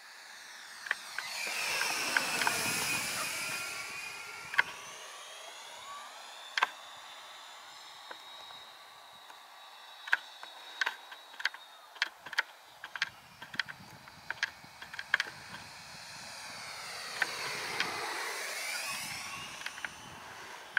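Electric ducted-fan RC Viperjet model jet making two fast passes, its fan whine swelling and fading as it goes by: the first about two seconds in, the second near the end. In between, a run of sharp clicks.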